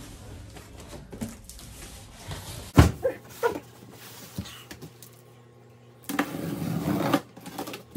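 A large cardboard shipping box being opened and handled. A sharp knock comes about three seconds in, followed by a couple of lighter bumps, then a stretch of rustling and scraping of cardboard and packing near the end.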